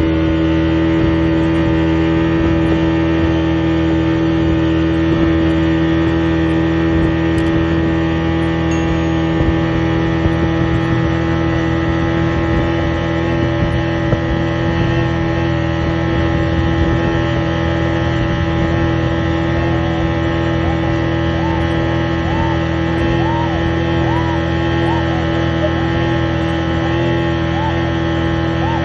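Outboard engine of a towing speedboat running at steady high speed, a constant droning hum.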